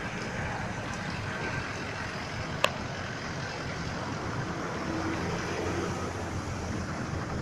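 Steady noise of vehicles running in a flooded street, with one sharp click about two and a half seconds in.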